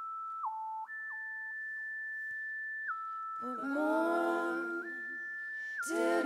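A pure, whistle-like synthesizer tone from a Korg keyboard steps slowly between high notes, one note at a time. About halfway through, a woman's sung voice comes in with long held notes, breaking off briefly near the end.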